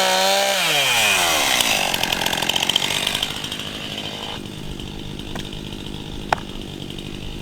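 Two-stroke chainsaw at full throttle, then let off about half a second in, its revs falling over a second or two to a steady idle. A couple of sharp knocks come near the end. The chain is dull, by the operator's account.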